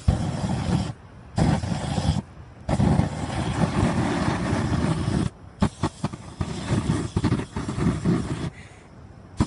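Deodorant aerosol can sprayed through a flame as a makeshift flamethrower: a rushing hiss and flare in repeated bursts. The longest burst lasts about two and a half seconds, and short, choppy spurts follow in the second half. The fire comes out spread, not concentrated.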